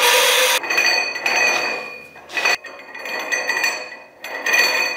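Cordless die grinder with a burr grinding a stainless steel weld, stopping about half a second in. After that, stainless steel parts ring and clink, with two short louder metal scrapes, one in the middle and one near the end.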